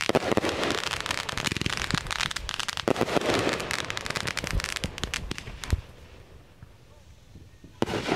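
Aerial fireworks going off: a rapid barrage of crackling pops and bangs for nearly six seconds that then dies away. Another loud burst comes near the end.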